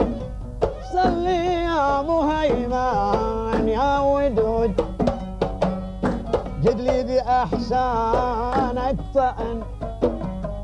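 Traditional Gulf folk song: a man singing long, wavering drawn-out notes over oud and a hand drum beating a steady rhythm.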